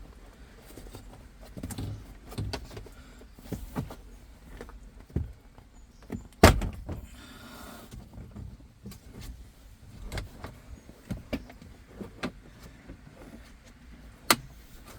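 Scattered clicks and knocks of hand work on car interior parts, with a loud sharp snap about six and a half seconds in and another near the end.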